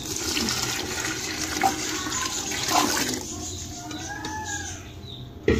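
Water poured from a bowl into a pot of fried masala and boiled chickpeas, the pour strongest for about the first three seconds and then fainter gurgling. A sharp knock near the end.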